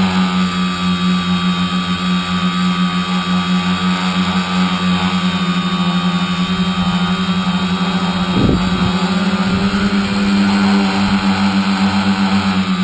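Tricopter's three 2210N 1000kv brushless motors spinning 9047 propellers, a steady buzzing whine of nearly constant pitch heard close up from the camera on the frame. A brief low thump about eight and a half seconds in.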